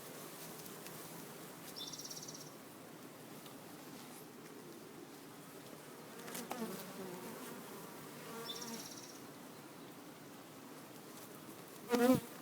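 Honeybees of a defensive colony swarming at an open hive, a steady hum of buzzing. There are two faint short high chirps, and a louder, brief pitched buzz near the end.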